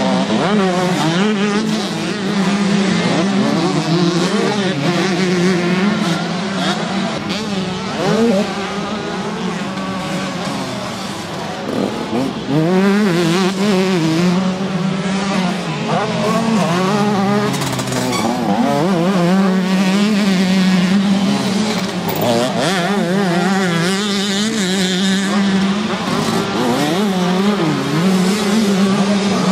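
Several 125cc two-stroke motocross bikes racing. Their engines rev up and drop back again and again as riders accelerate out of turns and shift through the gears, over a steady drone from other bikes elsewhere on the track.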